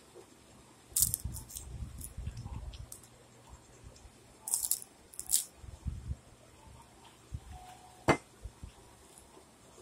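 Crunchy bites and chewing of a puffed rice cake spread with peanut butter and jelly, in a few short spells: about a second in, then again around the middle. Near the end, a single sharp clack as the rice cake is set back down on the plate.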